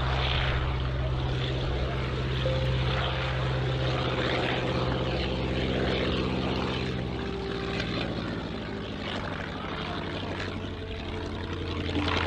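Fieseler Storch's inverted V8 engine and propeller running at full power as the plane takes off and climbs past. Its pitch drops about seven seconds in as it goes by, and it is slightly quieter after that.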